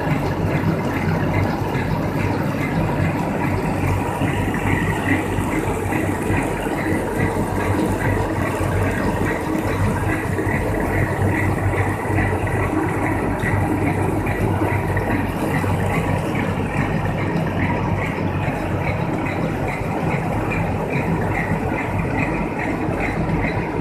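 Plastic-film converting machine running steadily, its rollers turning as a printed film web winds onto a spinning roll: a constant mechanical hum with a fast, regular ticking above it.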